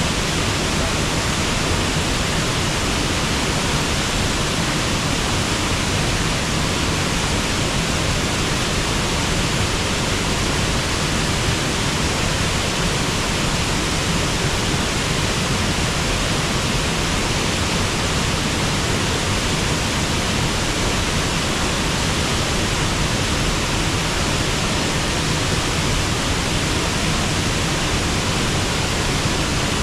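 Waterfall rushing steadily, an even hiss of falling water with no let-up.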